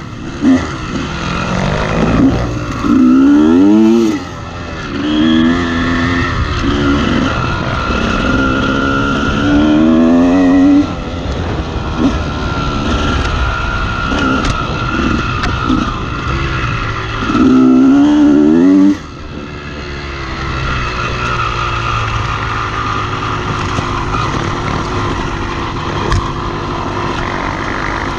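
Honda CR250R two-stroke single-cylinder dirt bike engine revving hard in four rising bursts, easing off between them, then running more steadily at lower revs for the last third.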